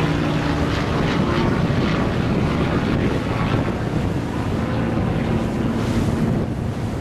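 Steady engine drone mixed with wind noise on the microphone.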